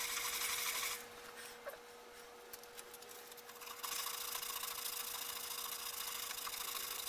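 Sandpaper being rubbed by hand over a thin wooden ukulele panel, a steady scratchy hiss of sanding strokes. It stops from about a second in to nearly four seconds in, with a few light taps, then the sanding starts again.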